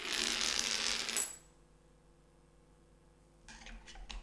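Short piece of rectangular aluminium tube set down on a wooden bench: a metallic clatter and scrape of about a second, ending in a brief high ring. A few faint taps follow near the end as a jigsaw blade and a file are laid on the wood.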